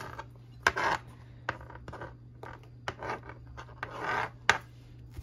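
A hand scraping and gathering sliced red sweet pepper strips across a cutting board, with a few sharp clicks and taps in between.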